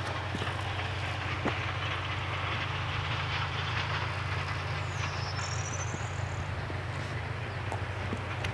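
Wind rumbling steadily on the camera's built-in microphone in an open meadow. A bird gives a short high trill about five seconds in.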